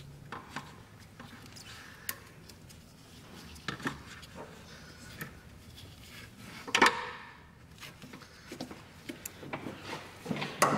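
Scattered knocks, clinks and rubbing of metal parts as a Honda Civic intake manifold is worked loose and eased out of the engine bay, with a louder knock about two-thirds of the way through.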